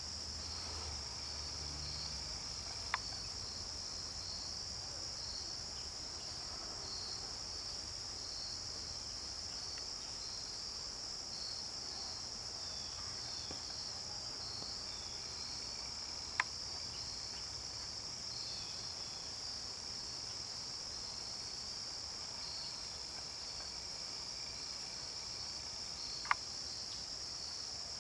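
Steady, high-pitched insect chorus, with three sharp clicks spread through it.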